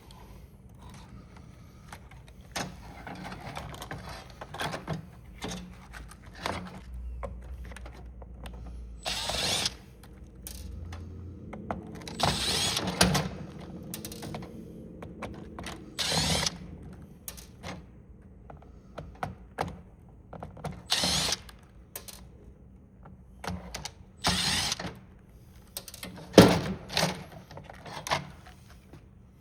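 Plastic case and parts of a printing calculator being handled and pulled apart: irregular clicks and knocks, with several short, louder scraping bursts.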